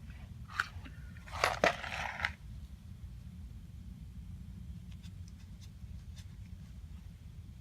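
Small metal carburetor jets and parts clinking and scraping on a work surface, with a short rattle and a sharp click about a second and a half in and a few faint ticks later. A steady low hum runs underneath.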